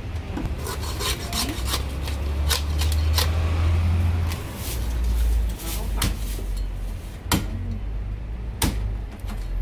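Knife cutting into a whole marinated goose on a wooden chopping block: scraping and rasping of the blade through skin, meat and bone, with short knocks of the knife on the block, three of them sharper in the second half. A steady low hum runs underneath.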